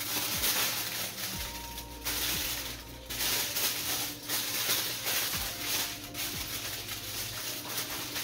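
Aluminium foil crinkling and rustling as a doubled sheet is handled and folded by hand.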